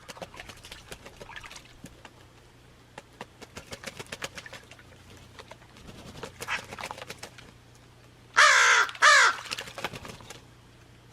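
Crow cawing twice in quick succession about eight seconds in, after a fainter call a couple of seconds before; light clicks and taps in between.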